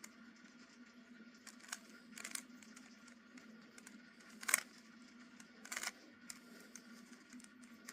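Plastic Rubik's Cube being handled and twisted: a few brief, faint clacks, the loudest about four and a half seconds in, over a faint steady hum.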